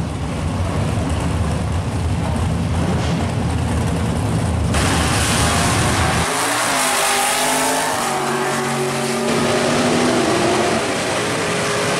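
Two drag-racing V8s, a Fox-body Ford Mustang and a Corvette, idle on the starting line. About five seconds in they launch together with a sudden surge of engine and tyre noise, and their engines climb in pitch as they accelerate down the track.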